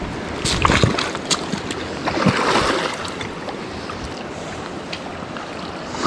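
Water splashing several times over the steady rush of creek water, most of it in the first few seconds, then easing to the steady flow.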